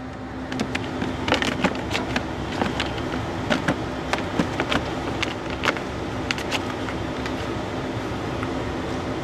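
Steady engine hum from a boat, with irregular sharp knocks and scrapes through the first six seconds or so.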